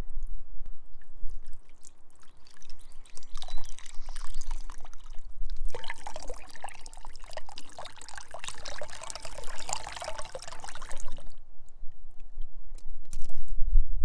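Water pouring off the end of a plastic marble-run chute and splashing into a ceramic bowl, in two spells: a shorter one a few seconds in, then a longer, louder one that stops suddenly near the end. A low wind rumble on the microphone runs underneath.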